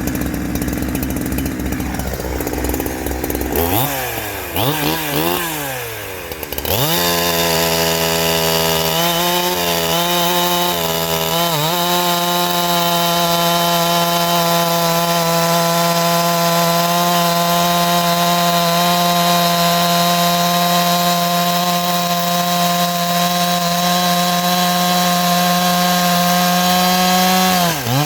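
Two-stroke chainsaw on its stock muffler, idling, then blipped up and down a few times about four seconds in. It is then held at full throttle for about twenty seconds, pitch dipping slightly as it works through a cut, before dropping back right at the end.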